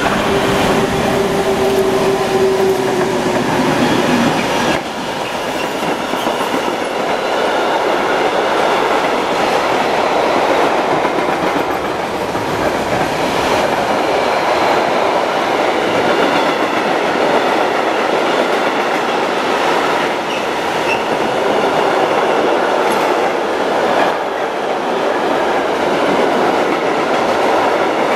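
Freight train hauled by two DB Cargo class 1600 electric locomotives passing close by, then a long run of loaded flat wagons rolling past with a steady rumble and clatter of wheels over the rail joints. A held tone is heard from the locomotives for the first few seconds, then glides down and fades.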